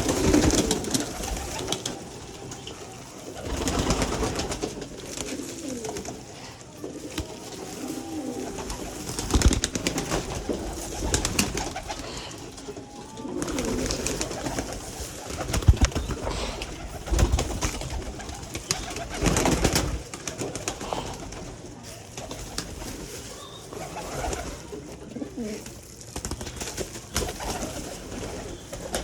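A flock of pigeons cooing throughout, with several short, sharp noises among the calls.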